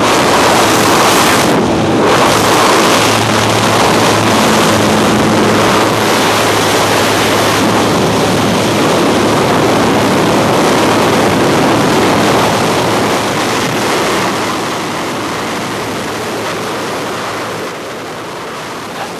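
Loud rushing wind through the open door of a small jump plane in flight, buffeting the microphone, over the steady drone of the aircraft's engine and propeller. It eases a little near the end.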